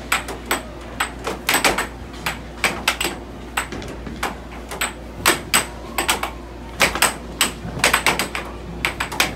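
Air hockey puck and mallets clacking: a rapid, irregular run of sharp hard-plastic hits, several a second, as the puck is struck back and forth in a rally.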